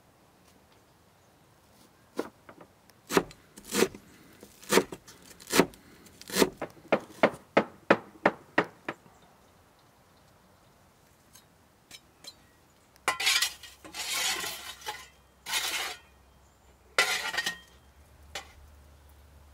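Cookware and metal utensils clinking: a run of about a dozen sharp knocks that come quicker and quicker, then a few longer scraping rattles.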